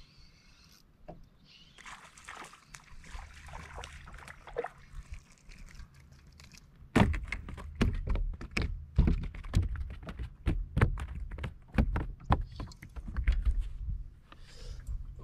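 Irregular thumps and knocks, loud and coming several a second from about seven seconds in, after a quieter stretch of faint rustling.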